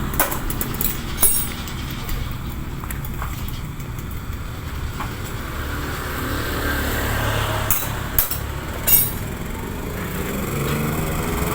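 Yamaha RX-King's single-cylinder two-stroke engine running steadily through its standard exhaust, with a few sharp clicks or knocks.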